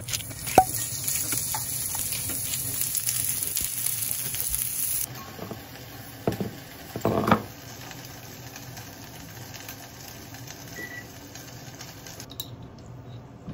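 Butter sizzling with a steady hiss in a rectangular tamagoyaki pan on a gas burner, cutting off about five seconds in. After that, quieter kitchen handling with a few short knocks.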